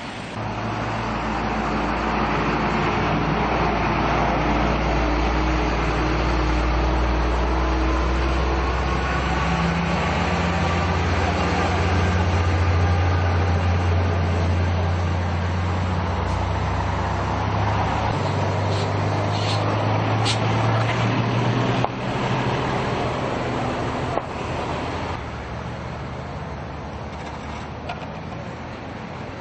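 A large vehicle's engine running close by, a deep steady drone that rises a little in pitch about ten seconds in, over road traffic noise. It eases off after about 25 seconds, with a couple of short knocks shortly before.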